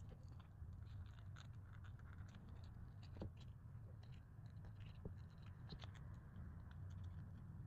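Faint scratching and small clicks of printed cardboard puzzle pieces being handled and their tabs slotted together, over a low steady hum.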